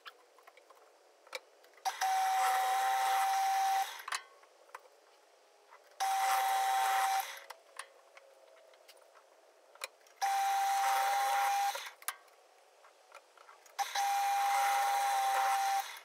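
Pillar drill boring four holes through softwood 4x2 timber, each lasting about two seconds, a steady motor whine over the rough noise of the bit cutting wood, with short quiet gaps between holes.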